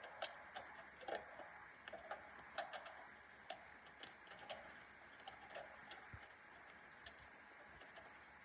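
Scattered hailstones hitting a car: faint, irregular sharp ticks and knocks a few times a second, fewer in the second half.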